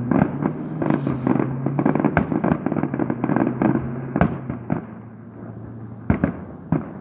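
Fireworks going off: a dense run of crackling bangs that thins out after about five seconds, then two sharp single bangs near the end.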